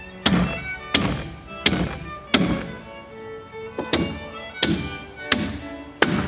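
Fiddle music plays throughout, cut by a hammer driving nails into framing lumber: eight sharp blows, roughly two-thirds of a second apart, each ringing briefly, with a short pause in the middle.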